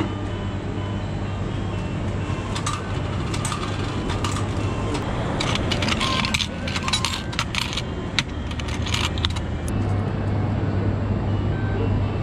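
Coins clinking and jingling as a hand scoops change out of a vending machine's coin return slot: a run of sharp metallic clinks over several seconds in the middle, thickest around the halfway mark, over a steady low hum.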